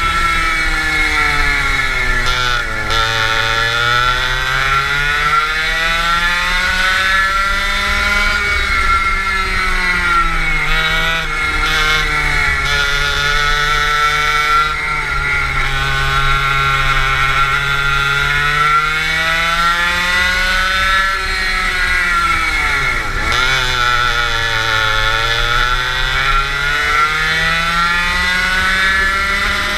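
Go-kart engine heard from the driver's seat, revving up along the straights and dropping in pitch as the kart slows for corners, over and over; the deepest drop comes a little over three-quarters of the way through.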